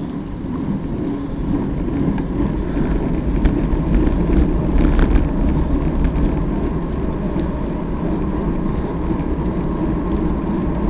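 Steady wind rush on a handlebar-mounted camera's microphone, with bicycle tyres rumbling on asphalt at riding speed and a few faint ticks.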